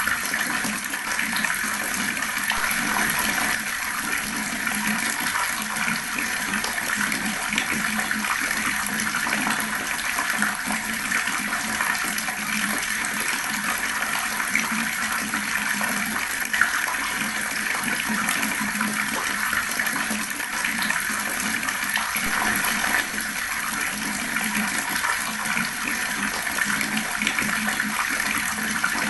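Fast-flowing water running steadily, an even rushing splash that does not change.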